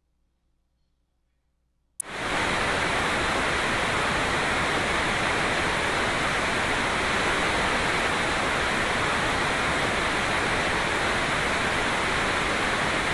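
A steady, even hiss of pink-type noise from a tinnitus sound-masking program. It switches on abruptly about two seconds in, holds without change with most of its strength in the upper middle range, and cuts off suddenly at the end.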